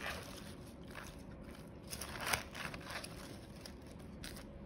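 Salad being tossed in a glass bowl with salad servers: faint crunching of leaves with light scrapes and taps of the servers against the glass, the loudest tap a little past two seconds in.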